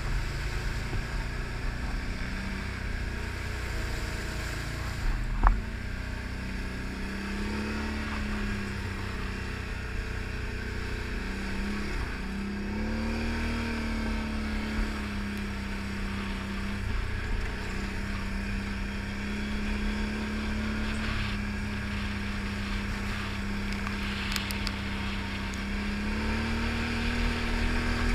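Can-Am ATV engine running steadily while riding, its pitch rising and falling gently with the throttle. A single sharp knock stands out about five seconds in.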